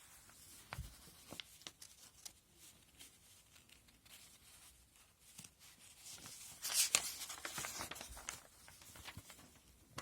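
Plastic model kit's box and packaging being handled: scattered small clicks and taps, with a louder rustle of packaging about two-thirds of the way through.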